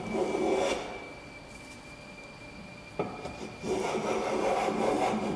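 Small hand plane shaving along the edge of a hardwood board to round it into a thumbnail profile. A rasping planing stroke ends within the first second; after a sharp click about three seconds in, a second long stroke starts.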